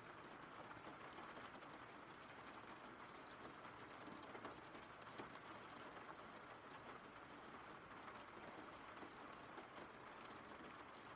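Faint steady rain: a soft even hiss with scattered drop ticks.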